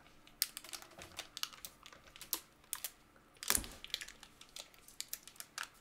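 Faint, irregular small clicks and crackles of a melted chocolate peanut butter cup being eaten off its plastic wrapper: sticky mouth sounds and wrapper crinkling, with one louder crackle about three and a half seconds in.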